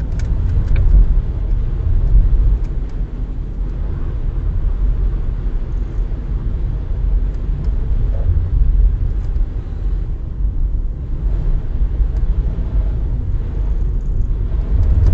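Low, steady rumble of a car driving slowly in circles on wet tarmac, engine and tyre noise heard from inside the cabin.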